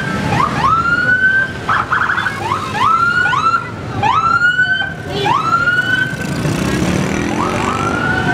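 Police car sirens whooping: each call is a rising sweep that levels off, repeating about once a second, and several overlap. A steady low din runs underneath.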